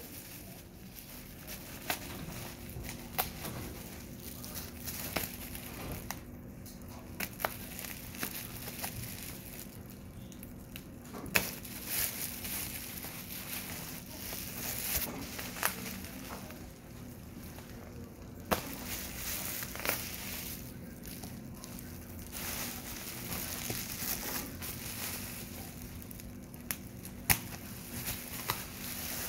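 Bubble wrap crinkling and crackling as it is handled around a box, with scattered sharp clicks throughout and a few louder ones.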